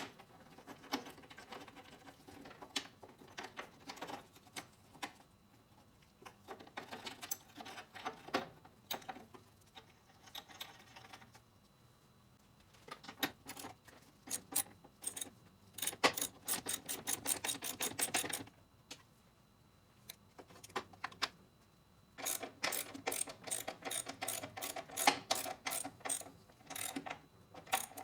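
Ratchet wrench clicking in quick runs of about six clicks a second, broken by pauses, as the bolts holding the mower deck's rear baffle are run in.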